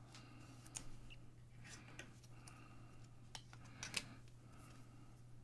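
Faint handling of glossy trading cards: soft rustles and a few small clicks as the cards are held up and moved, the sharpest click about four seconds in, over a steady low electrical hum.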